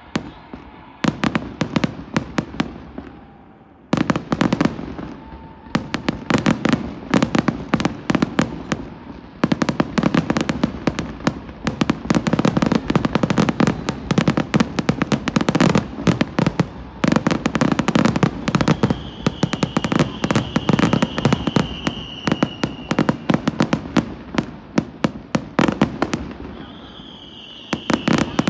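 Fireworks display in a rapid barrage, dense overlapping bangs and crackling reports one on top of another, with a short lull about four seconds in. A steady high whistle rises over the bangs for a few seconds past the middle and again near the end.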